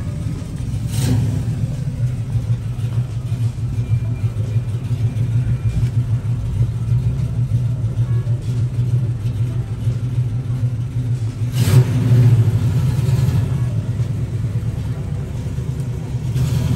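AMC Javelin's engine idling with a pulsing exhaust rumble as the car creeps past at low speed. There is a short throttle blip about a second in and a louder one near twelve seconds.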